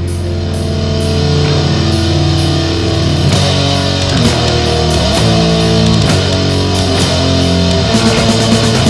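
Death metal music: heavily distorted electric guitars playing a low, sustained riff, filling out and growing louder about three seconds in.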